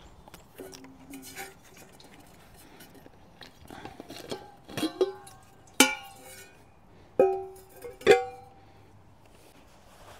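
Clicks and short electronic beeps from the control buttons of a portable battery-powered water filter as it is set to run. A pair of short steady tones comes about a second in, then several sharp clicks with ringing tones from about four seconds on.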